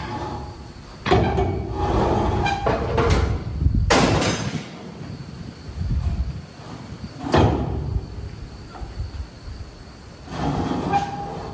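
Farm baling machinery running, with metallic squealing and two sharp clanks about four and seven seconds in.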